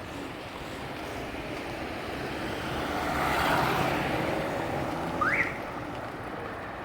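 A car passing along the street, its road noise swelling to a peak about halfway through and fading away. A short rising chirp sounds about five seconds in.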